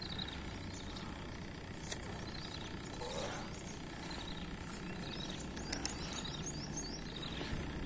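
Steady outdoor background noise with a short run of faint, high bird chirps about two-thirds of the way through.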